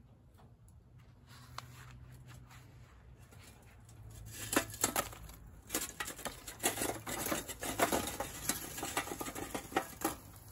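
Lit sawdust binchotan and charcoal briquettes tumbling out of a tipped chimney starter into a kettle grill. From about halfway in there is a dense run of clinks and clatters as the glowing pieces knock against the steel chimney and the coals below.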